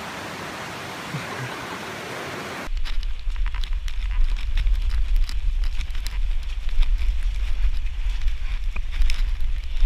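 Steady hiss for the first few seconds, then a sudden change to a heavy low rumble of wind buffeting the action-camera microphone, with crackles and splashes from shallow stream water.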